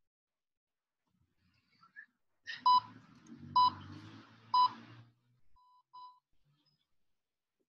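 Electronic interval-timer beeps: three short, loud, mid-pitched beeps about a second apart, then two fainter beeps just after, signalling the end of the rest period. A low, muffled rustle runs under the first three beeps.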